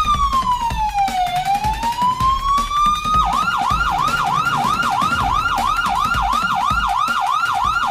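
Police siren: one slow wail falling and rising again, then switching about three seconds in to a fast yelp of about four cycles a second.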